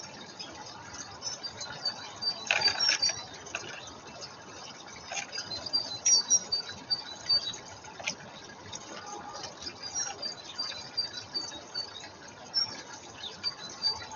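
Small garden birds calling with short, high chirps repeated many times, with a few clicks and a brief noisy burst about two and a half seconds in.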